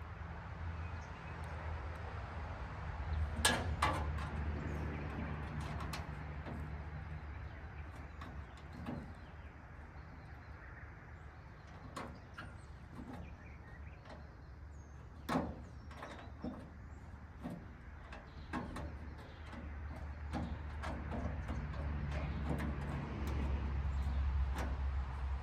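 Scattered clicks, clinks and knocks of hand tools and metal car parts being handled, the sharpest about three and a half seconds in and again midway, over a low steady hum.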